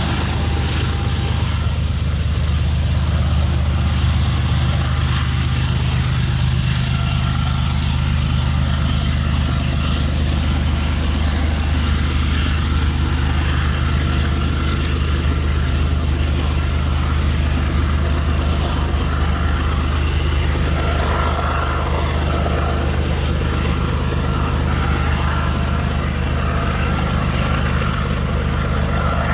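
Freight train rolling past, a steady loud rumble and low hum that holds level throughout.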